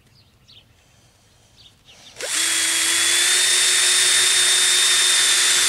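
Cordless drill boring a hole through the edge of a vinyl window frame: the motor starts about two seconds in and runs loud at a steady, unchanging speed for about four seconds.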